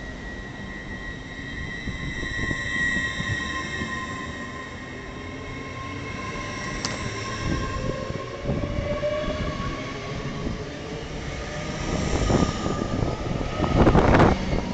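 LNER Class 801 Azuma electric train pulling away past the platform, with high whines from its electric traction motors, one rising in pitch about eight seconds in as it gathers speed. A loud rushing noise swells near the end as the carriages go by.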